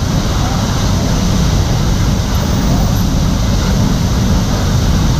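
Fire hose fog stream spraying into a burning propane fire, heard as a steady, loud rushing noise, heaviest in the low end.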